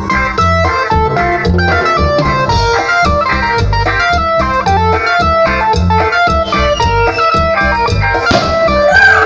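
Instrumental band music: a guitar melody of short plucked notes over a steady bass and drum beat, with a cymbal-like crash about a second before the end.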